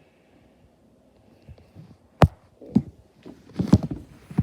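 Handling noises: near quiet at first, then a sharp click about two seconds in, followed by several dull knocks and bumps.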